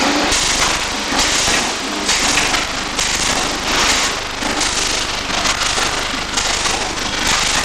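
Electric arc welding crackling, the arc's sputter swelling and fading about once a second.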